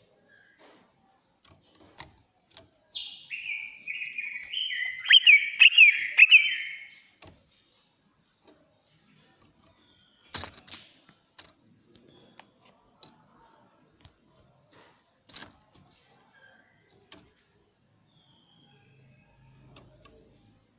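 Cucak ijo (green leafbird) singing one loud, shrill burst of quick stepped whistled notes lasting about four seconds, followed by scattered short chirps and a few sharp clicks.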